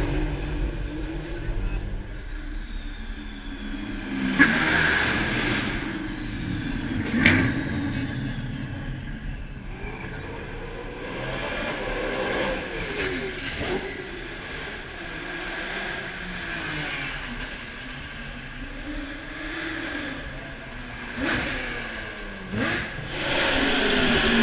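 Race car engines revving hard as cars accelerate past on a closed street circuit, the engine pitch rising and falling with each pass and gear change. There is a sharp crack about seven seconds in.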